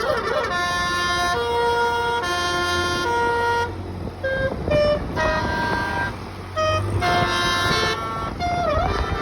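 A tour bus's Basuri 'telolet' multi-note horn playing a tune of held notes that change pitch every half second or so, with a couple of short breaks and a quick dip in pitch near the end, over a low rumble.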